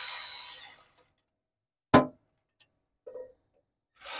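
Cordless electric ratchet running to back out a bolt on the exhaust heat shield, stopping just under a second in. About two seconds in there is a single sharp knock, the loudest sound. The ratchet starts running again near the end.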